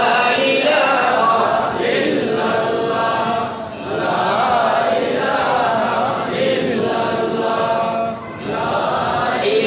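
Melodic chanting in a sung, drawn-out style, pausing briefly about four seconds in and again about eight seconds in.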